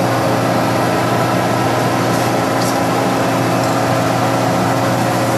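Warner & Swasey No. 3 turret lathe running under power from its 10 HP three-phase Reliance motor: a steady electric-motor hum, one strong low tone with several higher steady tones over it.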